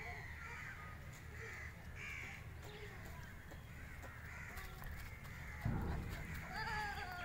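Crows cawing over and over, with a dull thump about three-quarters of the way through.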